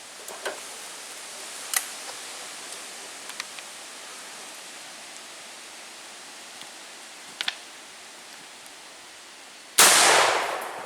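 A few light clicks and knocks, then near the end a single loud blast from a Harrington & Richardson 10-gauge shotgun firing a 3.5-inch magnum shell. The boom dies away over about a second.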